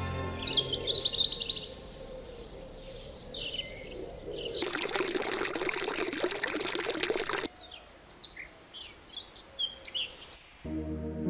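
Small birds chirping and singing, broken for about three seconds in the middle by a jet of water splashing into a stone fountain basin. Music comes in just before the end.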